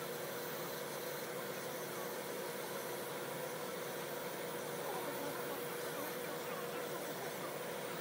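Electric nail drill (e-file) running with a steady hum as its bit files down a big toenail.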